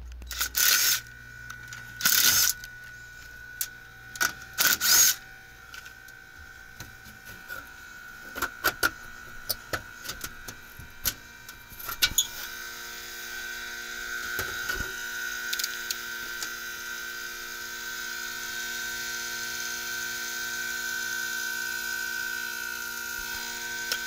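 Knocks, bumps and rustling of someone moving and handling things in a tight space, then, about halfway through, a steady machine hum with several held tones: a split-system air handler running.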